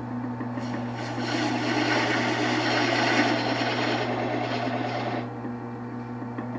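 Wood lathe running with a steady low hum. From about half a second in to about five seconds in, a tool scrapes against the spinning Osage orange blank, loudest around the middle, then only the motor hum remains.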